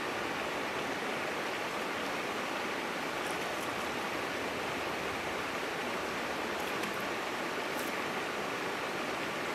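Small creek running, a steady even rush of water. A few faint high ticks come about a third of the way in and again about three quarters through.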